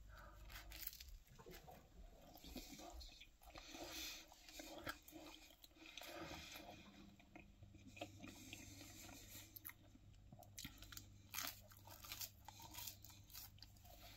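A person biting and chewing a slice of pizza, faint crunching and mouth clicks now and then.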